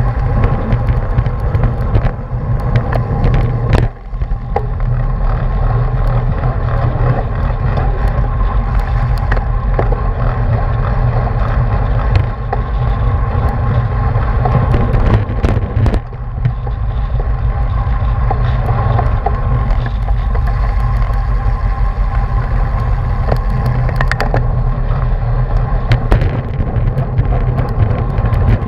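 Wind buffeting the microphone of a bike-mounted action camera at racing speed, over steady tyre and road noise from a road bike, dipping briefly twice.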